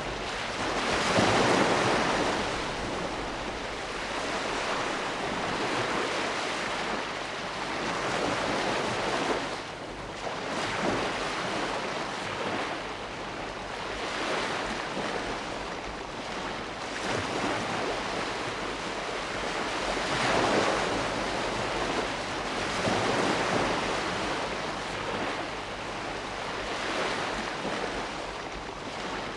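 Sea waves breaking and washing on the shore, in repeated swells of surf noise every few seconds.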